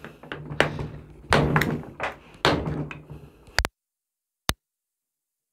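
Hammer tapping on an A/C compressor to drive out its stuck clutch coil: a run of sharp metal knocks, about two a second. About three and a half seconds in, the sound cuts out abruptly, with one more click a second later.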